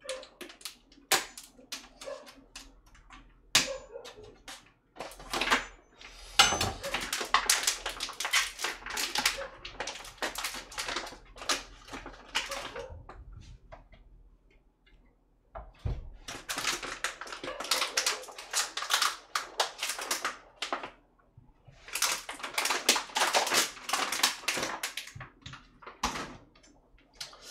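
Food packaging crinkling and rustling as frankfurter sausages are unwrapped by hand, in three long spells of dense crackling with short pauses between, after a few separate clicks.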